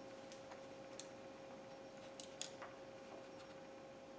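Near silence: faint shop room tone with a steady low hum and a few light clicks, one about a second in and a small cluster a little after two seconds.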